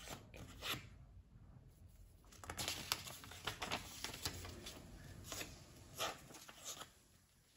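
A sheet of white paper rustling and crinkling as it is handled and folded by hand, in brief scattered rustles.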